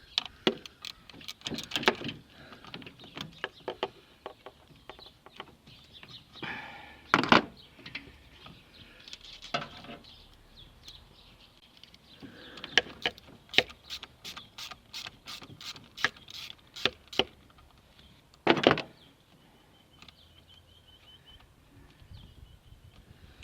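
Irregular metallic clicks and knocks of hand tools working an old battery terminal clamp loose, with a quick run of clicks in the middle and two louder knocks.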